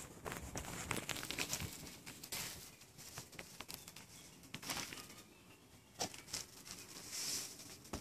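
Footsteps crunching and scuffing over dry leaves and debris, an irregular run of crackles and rustles.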